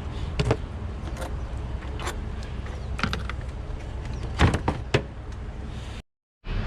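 Scattered clicks and knocks of a plastic air duct being unclipped and lifted out of a car's engine bay, over a steady low hum. The loudest knocks come about four and a half seconds in, and the sound drops out briefly near the end.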